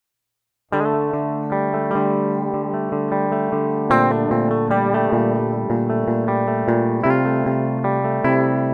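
Agile Septor Pro 725 seven-string electric guitar with Cepheus pickups, played through an amp as a pickup sound test: it starts suddenly out of silence about a second in, then sustained ringing chords, with new chords struck near the middle and again toward the end.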